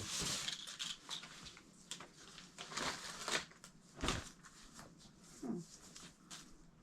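Parcel packaging being handled and unwrapped: irregular crinkling, rustling and scraping, with a few sharper taps.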